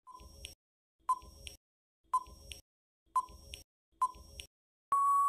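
Quiz countdown timer sound effect: five short beeps about a second apart, then one longer, steady beep near the end that marks the end of the countdown.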